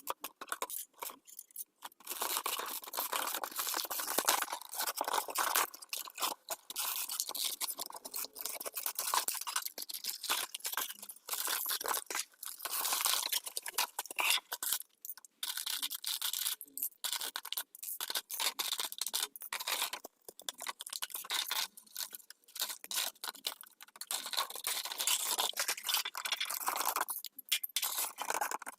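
A toy playset's packaging being opened by hand: irregular crinkling, tearing and scraping with short pauses between handlings.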